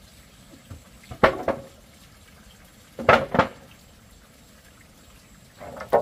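Water splashing in short bursts, about four times: once a little after the start, twice in quick succession around the middle, and once at the end.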